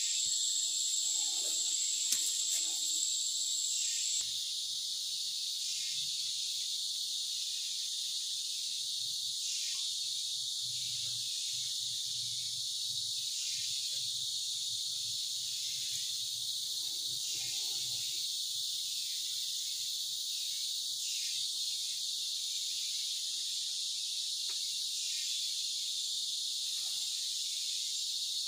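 Dense chorus of forest insects, crickets among them, making a steady high-pitched buzz. One shrill high note in the chorus stops about four seconds in.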